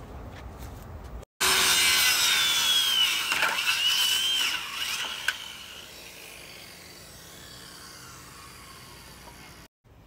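Circular saw cutting through a wooden fence board for about four seconds, its high whine dipping as the blade loads up, then dropping away.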